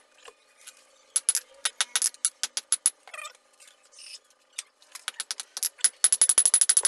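Hand hammer on a hot steel blade forged from a chainsaw bar, on an anvil: a few scattered metallic taps and clinks, then from about six seconds in a fast, even run of hammer strikes.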